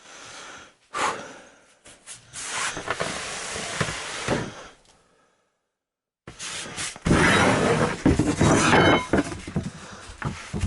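Particle board subfloor panels being shifted and worked into place, with scraping and rubbing broken by sharp knocks. The sound cuts out completely for about a second near the middle.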